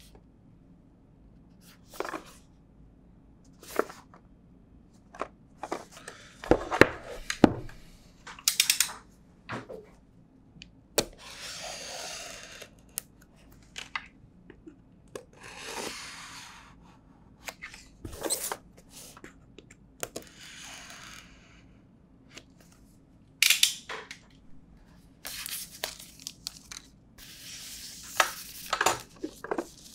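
Hands unboxing a Realme 3 smartphone's retail box and packaging: scattered sharp taps and clicks, with several longer rustling swishes of packaging material lasting a second or two each.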